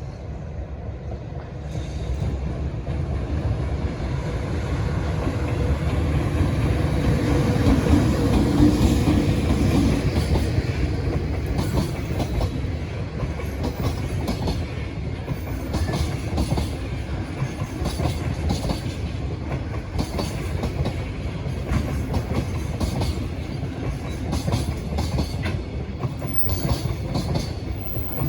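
Freight train passing at speed: the locomotive goes by loudest about eight to ten seconds in with a low hum. A long string of container wagons follows, clattering over the rail joints with repeated clicks.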